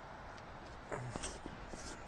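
Steady wind noise with a few short splashes and clicks about a second in, from a hooked fish being drawn in at the water's surface.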